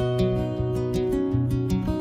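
Background music: a plucked acoustic guitar playing a melody, its notes changing several times a second.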